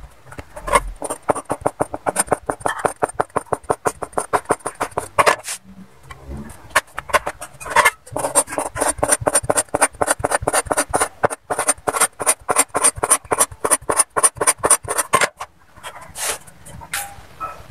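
Cleaver chopping folded egg-noodle dough on a wooden cutting board: quick, even strokes at about five or six a second, in two long runs with a short pause about five seconds in.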